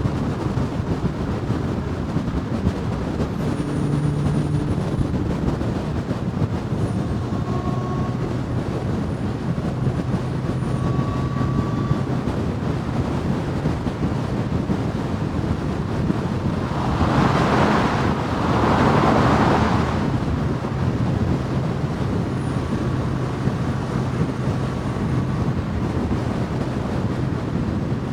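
Steady road and traffic noise from cars on the move, with a low hum underneath. A louder rush of noise rises and falls about two-thirds of the way through, lasting a few seconds.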